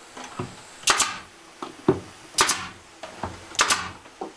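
Pneumatic nail gun firing three times, about a second and a half apart, each shot a sharp double crack, driving nails into a plywood cabinet; lighter knocks of the tool against the wood between shots.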